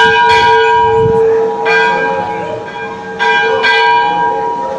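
A large metal temple bell being struck repeatedly, about four strikes, each leaving a long, steady ringing tone that carries into the next.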